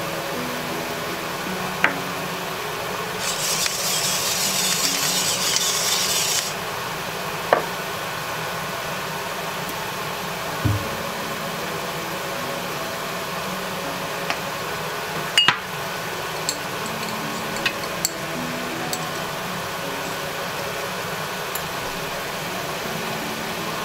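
Stir-fry in a nonstick frying pan with a steady hiss of cooking, broken by a handful of sharp clicks and taps of utensils and sauce bottles against the pan. About three seconds in, a louder hiss lasts for about three seconds as seasoning goes in.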